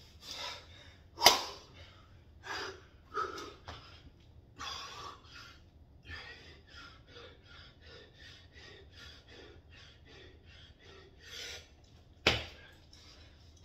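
A man breathing hard: heavy gasping breaths, then quick even panting at about two breaths a second, winded from burpees. Two sharp slaps, about a second in and near the end, are the loudest sounds.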